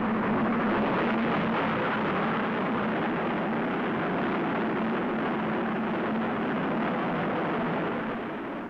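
Steam locomotive running at speed through a tunnel: a steady din of train noise that drops off near the end as the train comes out into the open.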